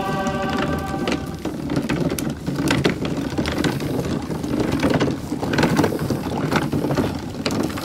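The small wheel under the foot of a large red cross rolling and grinding along a road, a steady rough rumble with irregular knocks and clacks.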